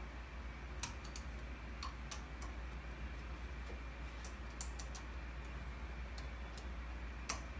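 6 mm Allen wrench tightening socket-head bolts: irregular light metallic clicks of the key against the bolt heads and housing, the loudest near the end, over a steady low hum.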